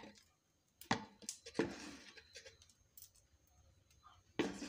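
Handling sounds while cooking: a few sharp clicks and knocks, with short rustling and scraping sounds after them.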